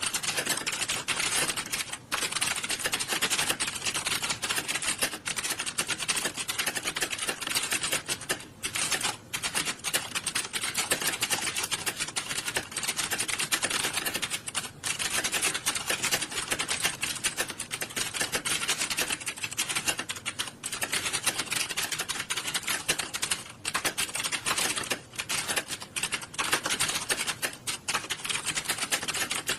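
Many computer keyboards being typed on fast at once, as in a typing test hall: a dense, continuous stream of overlapping key clicks with a few brief lulls.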